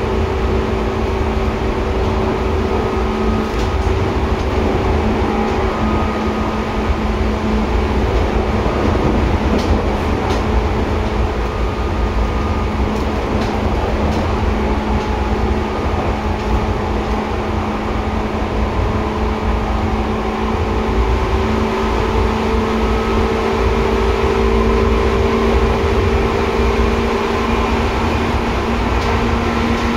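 Seibu 2000 series electric train running, heard from inside the car: a steady low rumble of wheels on rail, with an even hum of several steady tones over it.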